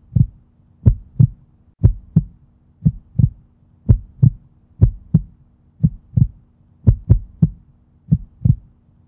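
A heartbeat sound effect: pairs of short, low thumps, a lub-dub about once a second, keeping an even beat.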